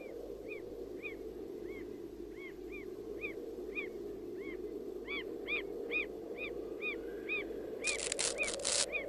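An animal chirping over and over in short rising-and-falling calls, about two a second, over a steady outdoor background hiss. A quick run of sharp knocks comes near the end.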